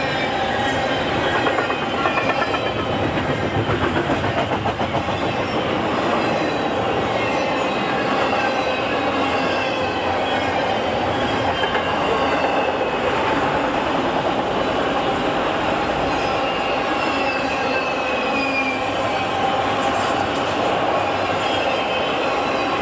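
A train's cars rolling steadily past, with high wheel squeals that slide up and down in pitch over the rumble of the wheels on the rails.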